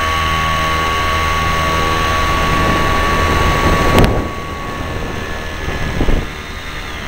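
Engine of a foot-launched powered hang glider running steadily in flight, driving a pusher propeller, with air rushing over the camera. A sudden loud rush comes about four seconds in and another about six seconds in, and the sound is quieter after the first.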